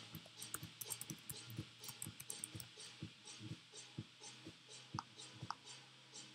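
Keys clicking irregularly as a name is typed on a computer keyboard, then two louder single clicks about five seconds in.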